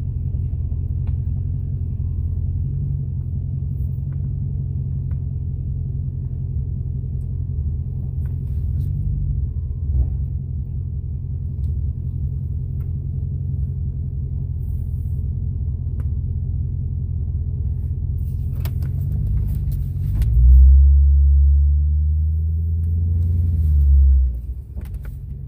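Steady low rumble of a Lincoln Town Car's V8 and tyres heard from inside the cabin while driving. Near the end the low hum swells louder for a few seconds, then drops away suddenly.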